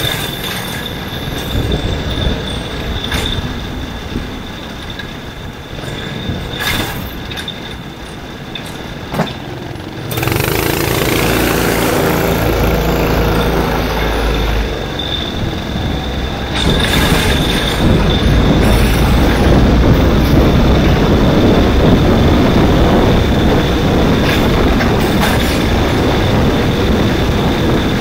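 Onboard sound of a Ninja kart racing: its small engine running hard with wind noise, a steady high whine and occasional knocks from the chassis. It gets louder about ten seconds in.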